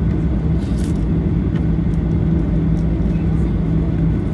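Boeing 737-800 engines running at taxi power, heard inside the passenger cabin as a steady drone with a low steady hum under it.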